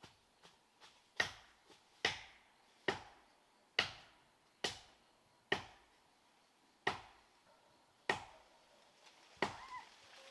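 A blade chopping into wood with steady, evenly spaced strokes, about one a second, each a sharp hit with a short ring after it; a few lighter taps come first.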